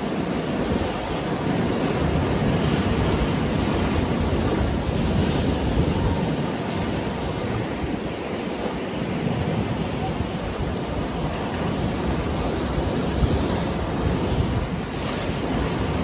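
Rough sea waves breaking and washing against rocks along the shore: a continuous rushing surf, steady in loudness.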